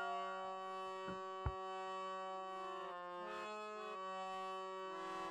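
Harmonium playing slow sustained chords that move to a new chord about three seconds in, with a single brief click about a second and a half in.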